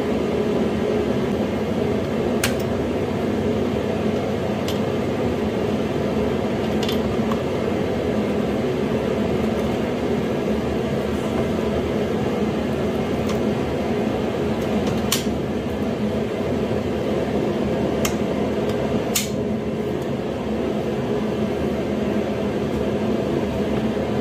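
A steady mechanical hum fills the room throughout. Half a dozen short, light metallic clicks come and go over it as hands work on a small engine sitting in a minibike frame.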